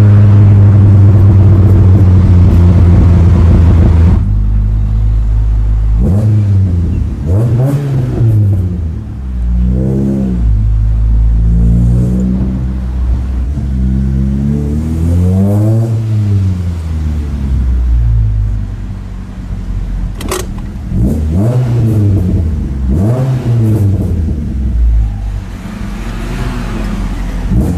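VW Golf Mk1 engine through a Magnaflow stainless exhaust, heard from inside the cabin: a steady loud drone for about four seconds, then the engine is revved in a series of short blips, about eight, each rising and falling in pitch and settling back to idle in between.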